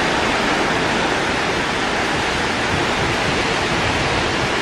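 Storm waves breaking over a harbour breakwater and washing across the quay: a steady rush of surf and spray.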